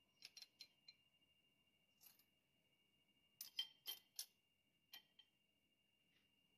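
Faint, light metallic clicks and clinks from clutch parts being fitted by hand into a Model T transmission's clutch drum: a quick cluster in the first second, one more about two seconds in, the loudest run about three and a half to four seconds in, and two last ticks near five seconds, over a faint steady high whine.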